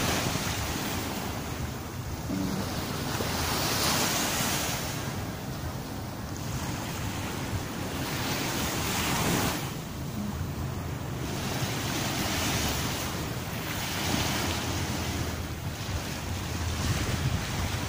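Sea waves breaking and washing up a sandy beach, the surf swelling and easing every few seconds, with wind buffeting the microphone.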